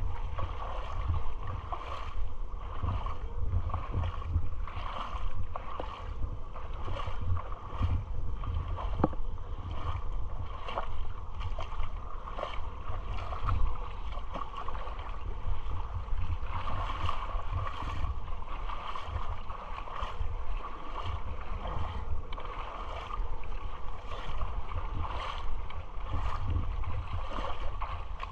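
Water sloshing and splashing in a steady rhythm of about one stroke a second as someone wades through shallow seawater, under a low rumble of wind on the microphone.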